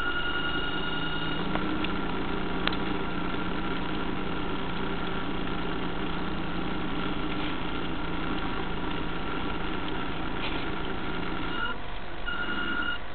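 Small electric motor of a radio-controlled model fire boat running steadily, heard from on board the hull as a constant hum; the hum changes shortly before the end.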